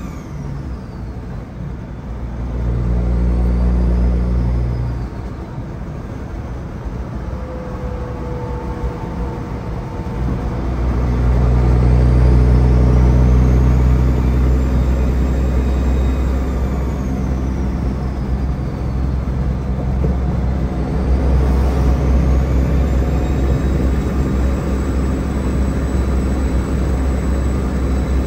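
Peterbilt 379's diesel engine pulling the truck down the road, heard from inside the cab: the engine note builds, eases off about five seconds in, then climbs again about ten seconds in and holds steady, with a faint high whine rising and falling above it.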